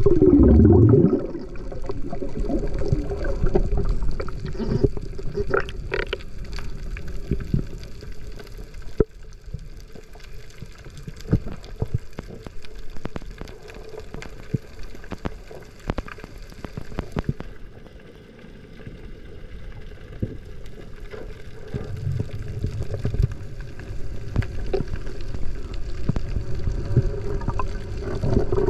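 Underwater sound picked up by a submerged camera: a muffled rush of water with many scattered sharp clicks, opening with a loud surge of water in the first second.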